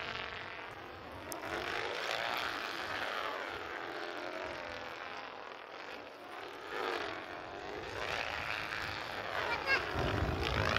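A train of stacked stunt kites buzzing as the fabric at their trailing edges flutters in the wind, a sound like a sport-bike exhaust that rises and falls in pitch as the kites sweep across the sky. A low rumble comes in near the end.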